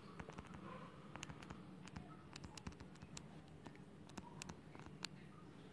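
Faint, irregular light ticks and scratches of handwriting on a tablet touchscreen, over quiet room tone.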